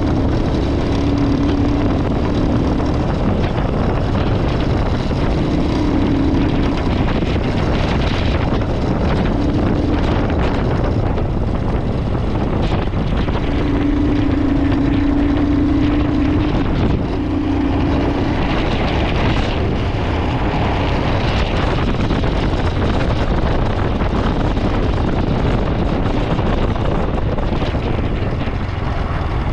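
Royal Enfield Himalayan 411's single-cylinder engine running under changing throttle on a rough off-road climb, its note coming and going in stretches, with heavy wind noise on the microphone.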